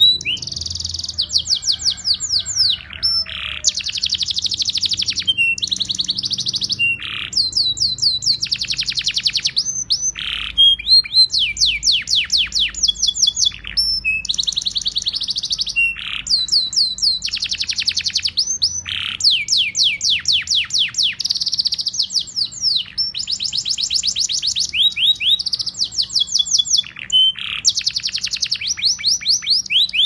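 Domestic canary singing a long, loud song: fast trills of rapidly repeated high notes, each roll lasting a second or two before switching to another, separated by short pauses.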